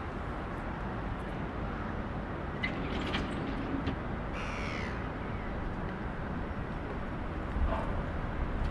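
Steady city street ambience with traffic noise, and a single short bird call about halfway through.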